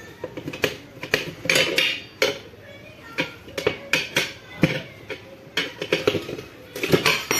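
Steel tyre levers clinking and scraping against a motorcycle wheel rim as a tyre bead is pried off by hand, in irregular metallic clanks one to three a second.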